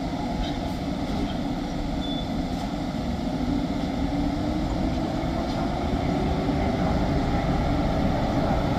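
PKP Intercity EP09 electric locomotive hauling passenger coaches slowly along a station track: a steady low rumble that grows gradually louder as it comes nearer, with a faint hum rising a little in pitch.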